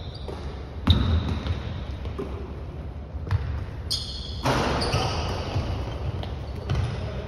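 Basketball game on a wooden gym floor: the ball bounces and thuds several times, and sneakers give short, high squeaks on the hardwood.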